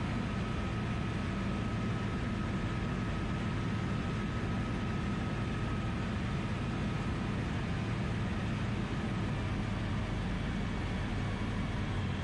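Steady engine and propeller drone with rushing airflow, heard from inside the cockpit of a DynAero MCR01 ultralight in level flight.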